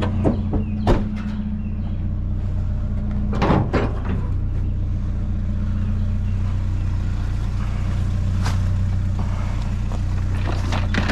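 Vehicle engine running steadily with a low hum, with a few short knocks and rattles, one near the start and another about three and a half seconds in.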